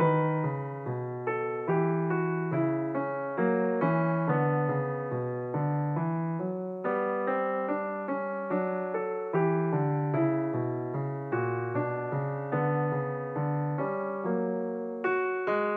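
Background piano music: a calm, steady run of single struck notes, about two a second, each fading before the next.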